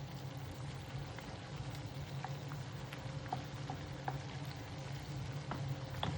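Food frying in a pan: a steady sizzle with scattered small pops, over a steady low hum.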